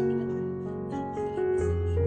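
Background piano music, slow sustained notes.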